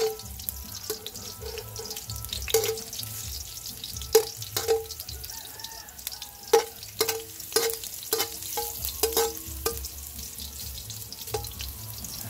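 Ginger sizzling in hot oil in a stainless steel wok while a metal slotted spatula stirs it, knocking and scraping against the pan so that each knock leaves a short metallic ring. The knocks come every second or so, quickening to about two a second between about seven and ten seconds in.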